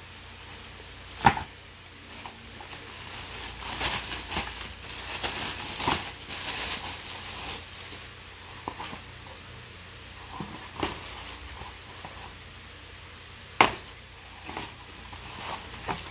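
Plastic packaging crinkling and rustling as shoes are handled in a cardboard box, with a few sharp knocks. The loudest knocks come about a second in and again near the end.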